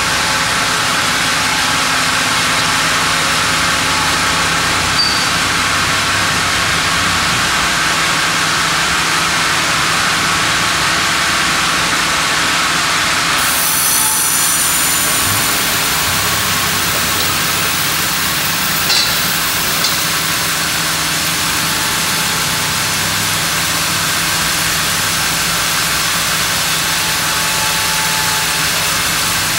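Band sawmill running steadily as its blade cuts a slab from a monkeypod (rain tree) log. About halfway through the sound changes and thin high tones join in as the log carriage travels back for the next pass.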